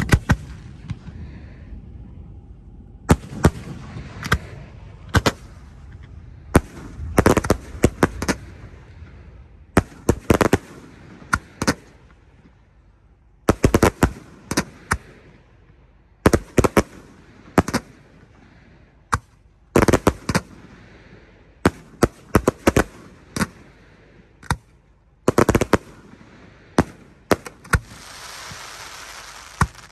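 Aerial fireworks bursting in the sky: dozens of sharp bangs, many in quick clusters of several reports. A hissing rush lasts a second or two near the end.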